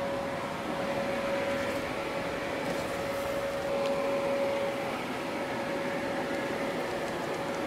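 Electric blower fans of an inflatable spray booth running steadily, a constant hum with one steady mid-pitched tone, keeping the booth inflated.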